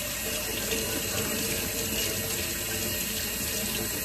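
Water running steadily from a faucet, the stream pouring into and splashing off a person's open mouth as he drinks from it.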